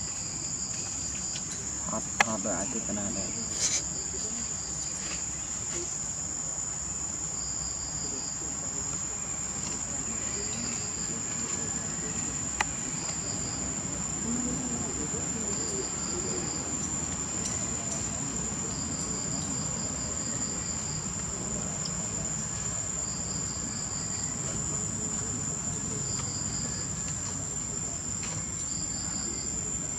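Insects droning steadily at a high pitch, with short chirping trills repeating every few seconds. A few sharp clicks stand out in the first half.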